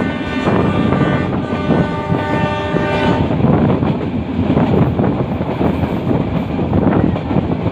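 Metre-gauge passenger train running, its locomotive horn sounding a steady chord that cuts off about three seconds in, over the continuous rumble and clatter of the wheels on the track.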